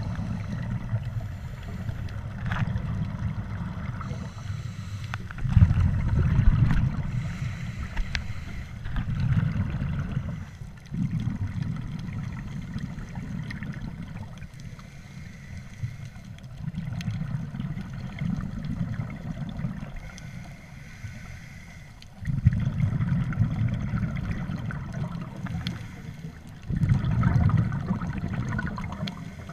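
Scuba diver's exhaled breath bubbling out of the regulator, heard underwater as low rumbling bursts every few seconds over a faint steady hiss.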